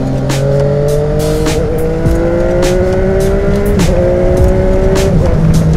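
Yamaha XSR900's three-cylinder engine, breathing through an SC Project conical exhaust, pulling under throttle. The revs climb steadily and dip briefly at two upshifts, about a second and a half and just under four seconds in. Near the end the revs fall away as the throttle comes off, with wind noise and occasional sharp clicks throughout.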